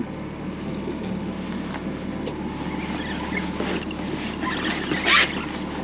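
Honda outboard motor idling steadily, with a brief burst of rushing noise about five seconds in.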